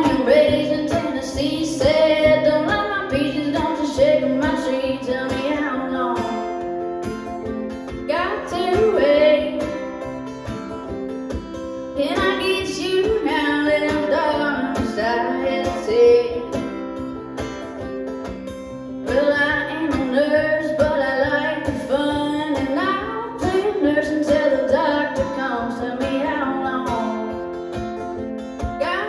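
A woman singing a Depression-era blues song in a country style, accompanying herself on acoustic guitar. There are short breaks between the sung lines while the guitar plays on.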